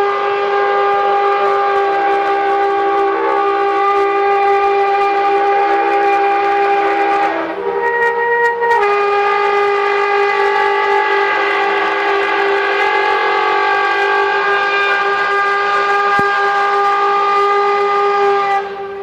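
Bulldozer scraping finished concrete, giving off a loud, sustained, trumpet-like drone of several held pitches. About seven seconds in, the tone breaks and shifts pitch for a second, then resumes and stops just before the end. This is the industrial sound behind viral 'strange trumpet sounds from the sky' recordings.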